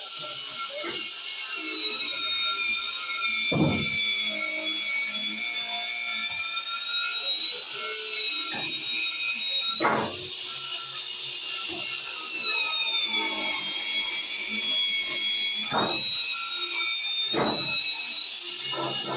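Angle grinder fitted with a wire brush, stripping rust from a steel pipe: a steady high whine that sags in pitch as the brush is pressed harder into the metal and then recovers. A few sharp knocks break through along the way.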